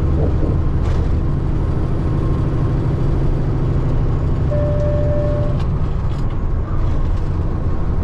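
Peterbilt 579 semi truck with a Cummins ISX15 diesel, cruising: a steady low engine drone and road noise heard inside the cab. A brief steady high tone sounds about halfway through.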